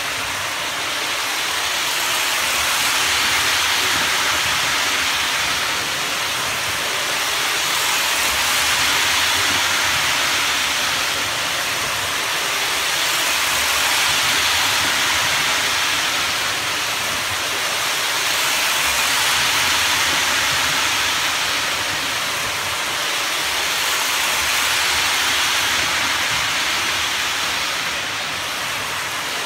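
Lionel post-war #2037 steam locomotive and its train running fast on three-rail O-gauge track, a steady rushing of wheels and motor. The sound swells and fades about every five and a half seconds as the train laps the loop.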